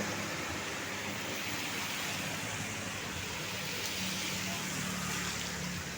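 Road traffic noise: a steady hum and rush of vehicles on the road, with a low engine drone.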